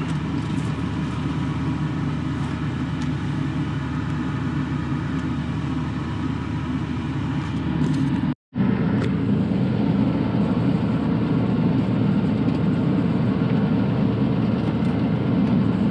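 Bobcat E42 mini excavator's diesel engine idling steadily, heard from inside the cab with the air-conditioning fan running. The sound cuts out completely for a split second a little past halfway, then carries on unchanged.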